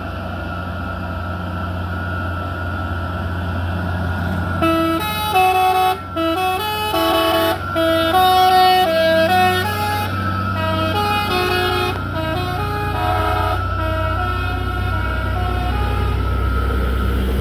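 A truck's multi-tone musical air horn plays a tune of short stepping notes for about ten seconds, starting about four seconds in. Under it runs the steady drone of a diesel truck engine.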